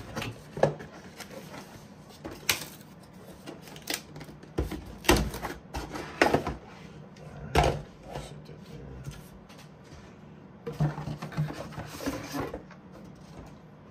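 Packaging and parts of a boxed RC truck being handled: a series of irregular sharp knocks and clicks as items are picked up and set down, with a quick cluster of them near the end.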